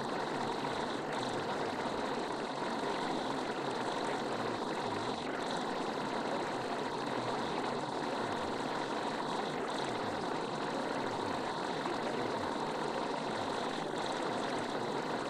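Steady, unbroken rushing noise, even in level throughout, with no music or speech on top.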